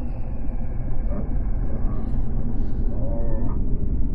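Deep, steady rumbling drone, with faint wavering moan-like tones rising over it about three seconds in: an eerie ambient horror sound effect.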